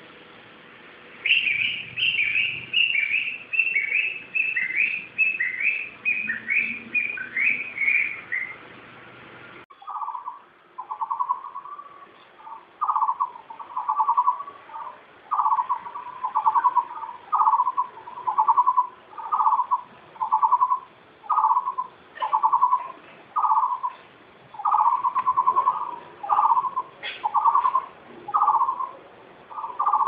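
Recorded bird calls in two spliced takes. First a bird repeats quick, high chirps, about three a second. Then, after an abrupt cut about ten seconds in, a bird gives a lower, pulsed note, repeated about once a second.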